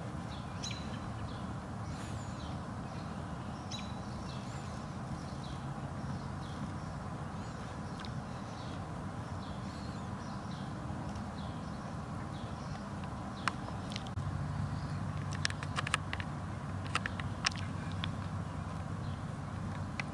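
Outdoor ambience: a steady low background rumble with faint, scattered bird chirps. The rumble grows louder about two-thirds of the way in, and a few sharp clicks follow near the end.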